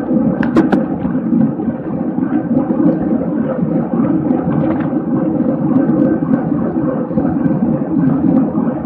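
Steady rushing of wind on the microphone and tyre noise from a bicycle ridden at race speed, with a few sharp clicks about half a second in.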